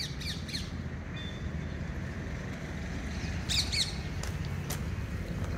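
Birds chirping: quick falling chirps at the start and a short cluster of them about three and a half seconds in, over a steady low rumble.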